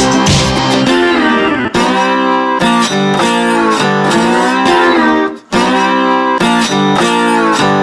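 Background music with guitar: plucked and slide-guitar notes changing pitch in steps, with a brief break about five and a half seconds in.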